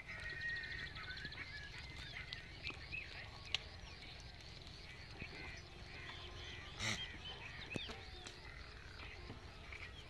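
Many small birds chirping and twittering, with a rapid trill in the first second. A sharp click about three and a half seconds in and a short noisy burst near seven seconds stand out above them.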